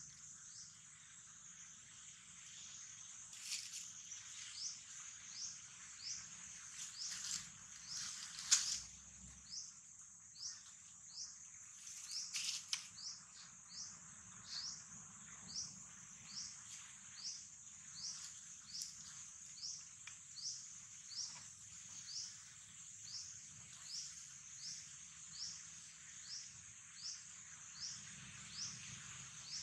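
Forest insect chorus: a steady high buzz with a short chirp repeating about every 0.7 s. A few sharp clicks and rustles come in the first half.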